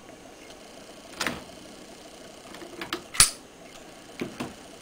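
Sharp clicks and knocks of jumper cable clamps and plastic battery terminal connectors being handled, about five in all, the loudest about three seconds in.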